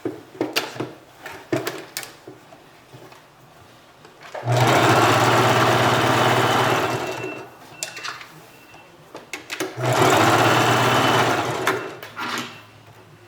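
Sewing machine running in two stretches of about two and a half seconds each, with small clicks and knocks of handling in between.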